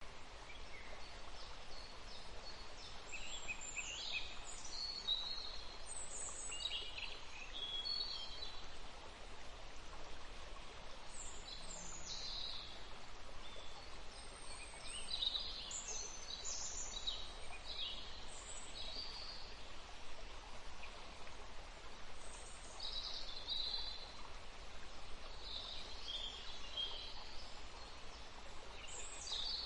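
Outdoor ambience: small birds chirping and singing on and off over a steady background hiss.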